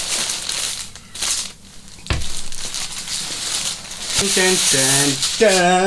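Clear plastic polybag crinkling and rustling as a backpack is pulled out of it, with a few short voiced sounds near the end.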